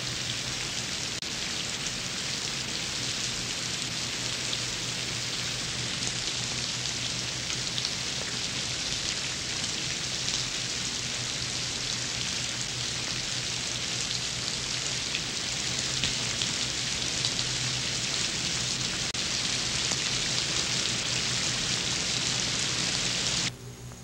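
Steady hissing noise with a low hum underneath, cutting off suddenly near the end.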